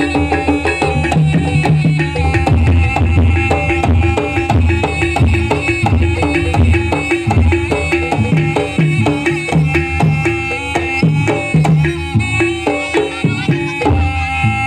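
Live Javanese traditional dance music: hand drums (kendang) beating a fast, driving rhythm over pitched gamelan instruments playing a repeating melody.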